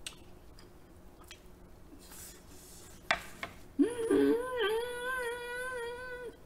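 A woman humming a long, wavering "mmm" of delight with her mouth full of food, starting with an upward swoop about four seconds in and held for about two and a half seconds. A single sharp click comes just before it.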